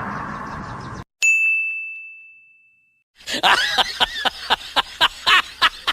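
Meme sound effects: a noisy sound fading out, then a single high bell ding that rings and dies away over about two seconds. After a short pause comes a fast run of short voice-like bursts, about four a second, like a snickering laugh.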